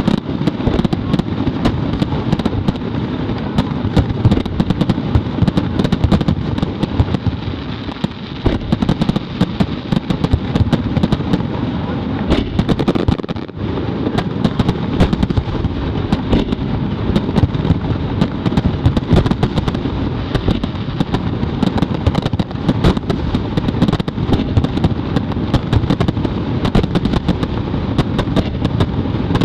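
Fireworks finale: many shells bursting in quick succession, their sharp bangs overlapping into a continuous rumble, with brief lulls about eight and thirteen seconds in.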